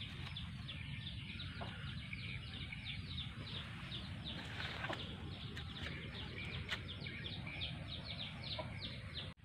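A bird calling with a rapid string of short, high chirps, each falling in pitch, about three a second, over a low outdoor rumble.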